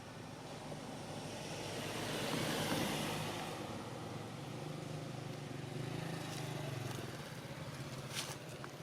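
A motor vehicle passing: its noise swells to a peak about three seconds in, then fades into a steady low hum. There is a sharp click near the end.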